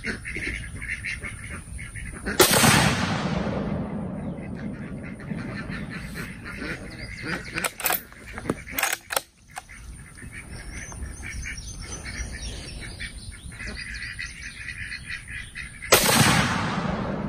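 Two shots from a Mossberg Patriot bolt-action rifle in .30-06 Springfield, about thirteen seconds apart, each a sharp report followed by a fading echo. Between them, about eight seconds in, the bolt is worked with a few quick metallic clacks to chamber the next round.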